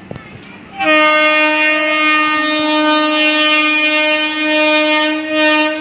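Horn of an approaching WAG-9 electric freight locomotive sounding one long, steady blast of about five seconds. It starts about a second in and dips briefly just before it stops.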